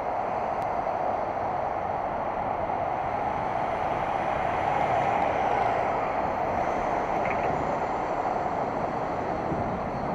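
Steady rushing noise of riding a bicycle along a city street: wind on the microphone and road noise, with motor traffic passing alongside. It swells a little around the middle.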